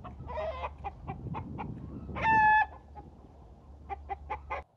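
Chickens clucking: a run of short, sharp clucks, one longer held call about two seconds in, then another quick run of clucks near the end.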